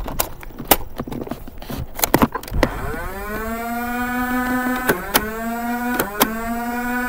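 Nerf AR-L motorized flywheel blaster: handling clicks and rattles, then about two and a half seconds in the flywheel motors spin up with a rising whine that settles into a steady whine. Two quick pairs of sharp firing clicks sound over the whine as darts are fired.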